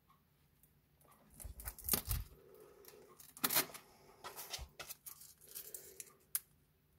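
Several short, scattered ripping and peeling sounds from a strip of self-adhesive velcro being pulled apart and peeled by hand.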